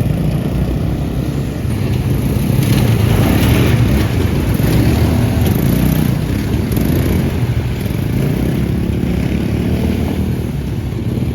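Steady running of a small vehicle's engine, a loud low rumble with noise over it.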